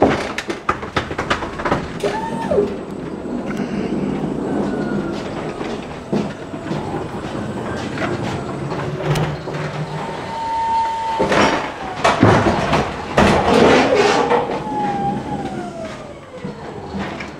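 Atlet electric reach truck lifting pallets off a lorry: motor whines that glide up and down over steady rattling and clattering knocks. A dense run of loud knocks comes about twelve seconds in, and a falling whine follows near the end.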